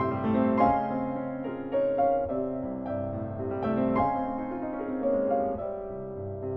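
Solo piano playing a classical piece: a melody over low chords, a new note or chord struck about every half second, with the notes ringing over one another.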